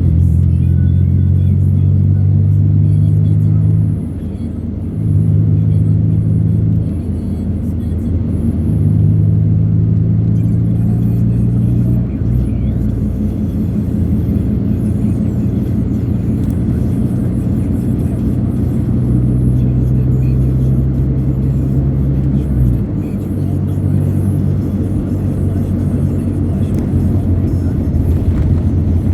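A moving vehicle's rumble and road noise, with music playing over it; a deep bass holds steady notes that change abruptly every few seconds.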